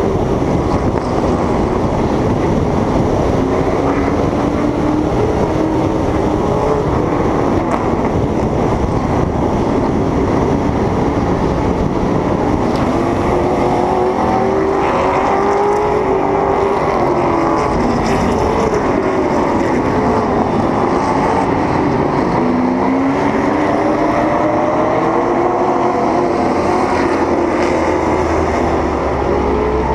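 Race car's engine heard from on board at racing speed, its pitch rising and falling again and again as it speeds up on the straights and eases off into the turns, over heavy wind and road noise.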